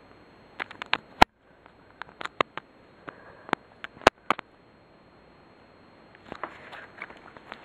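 A dozen or so sharp clicks and light knocks in irregular clusters, the loudest about a second in and about four seconds in, then a soft rustle near the end. No bell is ringing.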